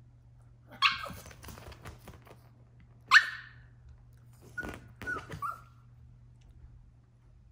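Yorkshire Terrier puppy throwing a tantrum: two sharp, high barks about a second and three seconds in, the second the loudest, then a few short, weaker yips around five seconds in.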